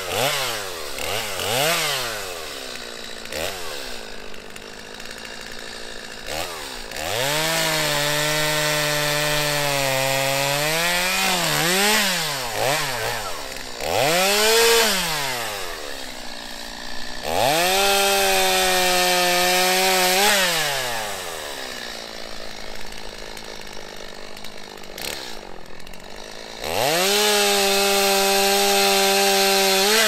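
Stihl MS 250 two-stroke chainsaw blipped and idling between three full-throttle cuts through a log, each held for about three seconds. During the first cut the engine pitch sags under load.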